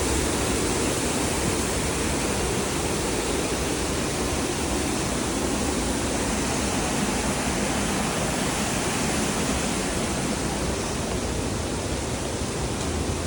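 Waterfall's rushing water, a steady, unbroken rush of noise.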